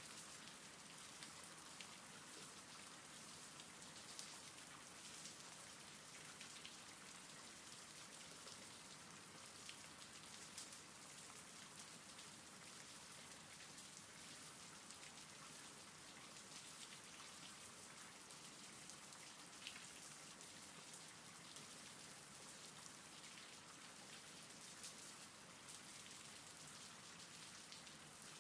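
Faint steady rain: an even hiss with scattered light drop ticks.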